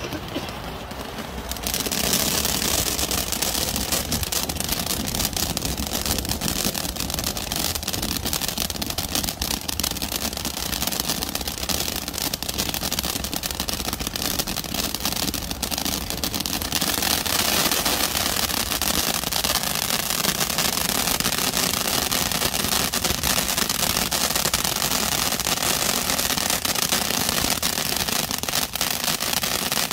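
Fireworks crackling densely and rapidly without pause, starting abruptly about two seconds in and growing brighter and harsher about halfway through.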